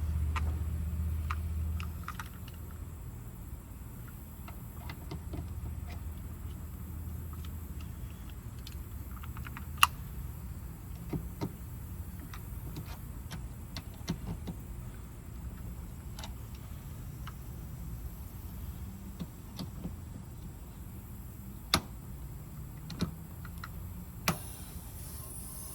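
Small clicks and metal taps of hand tools working at a mini split's refrigerant service valves, with a few sharper clicks, after a low hum that stops about two seconds in. Near the end a hiss begins as the refrigerant is let into the line set.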